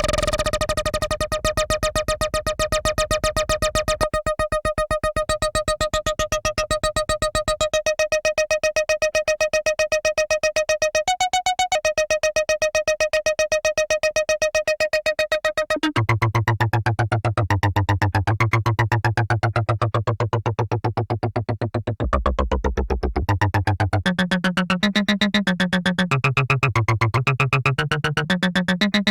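Behringer MonoPoly analog synthesizer playing a rapidly pulsing note held on one pitch, briefly stepping up about eleven seconds in. About halfway through, a lower bass line enters with descending sweeping tones, and the notes keep changing toward the end.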